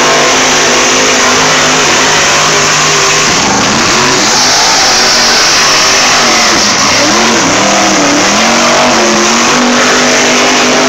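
Mud-racing buggy's engine revving hard at full throttle as it drives through a mud pit, very loud and steady. Its pitch dips and climbs again twice.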